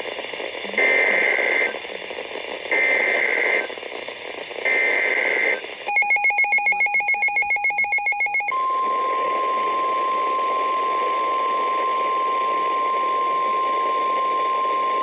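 NOAA Weather Radio alert header: three one-second bursts of warbling SAME data tones, then a couple of seconds of rapid pulsing electronic beeps. About eight and a half seconds in, the steady 1050 Hz warning alarm tone starts, signalling a new warning, here a severe thunderstorm warning. Faint radio hiss lies underneath.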